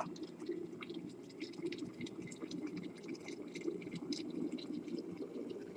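Water boiling in an electric kettle with sweet corn pieces in it: a steady bubbling with many small pops and crackles.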